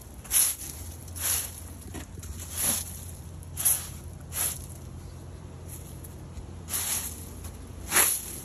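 Broom sweeping wet pavement: short hissing strokes, about one a second at uneven spacing.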